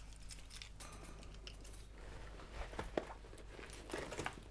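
Quiet handling noises: small clicks and rustles from hands working a small object, with the sharpest click about three seconds in, over a low steady room hum.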